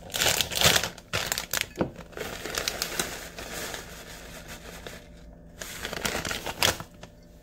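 Plastic pouch of shredded cheddar cheese crinkling as it is handled and tipped out into a glass measuring cup. The crackling is loudest in the first couple of seconds, with one more loud crinkle near the end.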